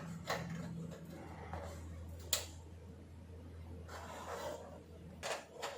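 Scattered clicks and light knocks of TV parts being handled and fitted during reassembly of the backlight panel, over a faint steady low hum.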